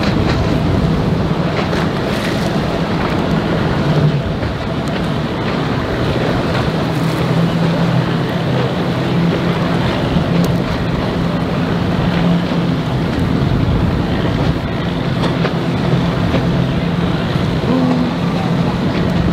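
Outboard boat motor running steadily at low speed, a constant low hum, with wind buffeting the microphone and water noise.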